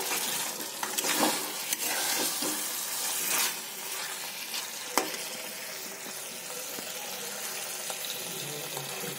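Bhuna chicken masala sizzling and bubbling in a hot pan, a steady frying hiss. A few sharp knocks come in the first half, the loudest about five seconds in, and then the sizzle goes on evenly.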